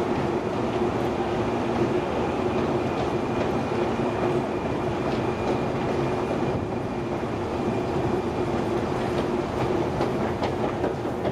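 Long metro escalator running: a steady mechanical rumble with a constant hum and a thin high whine, and a few faint clicks from the moving steps.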